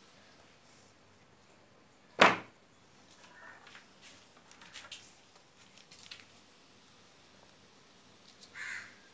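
Light crinkling and clicking of insulating tape being handled and wound around a toroidal transformer's copper winding. One loud, sharp sound comes about two seconds in, and a shorter one near the end.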